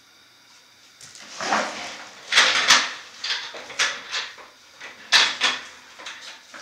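Handling of sports card boxes and foil card packs: a series of short, irregular rustling, scraping and crinkling sounds, as wrappers and cardboard are handled and torn open.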